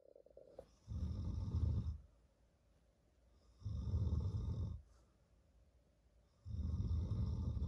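A man snoring while asleep: three long snores, each about a second long, about three seconds apart.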